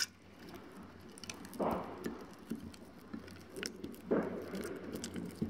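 Soft, wet squishing of a small ball of damp refined-flour dough being kneaded by hand in a small glass bowl, with faint scattered clicks and two slightly louder squishes.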